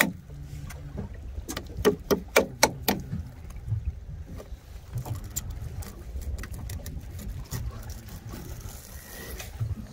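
Kitchen knife working along a conger eel pinned to a wooden cutting board, with a quick run of sharp knocks about two seconds in and lighter clicks and scrapes after, over the steady low hum of the boat.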